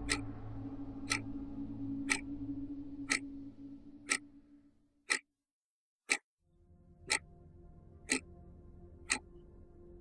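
Clock ticking steadily once a second, a sound effect over a low sustained music bed. The music fades out about five seconds in and a quieter sustained bed returns a second later, while the ticking goes on unbroken.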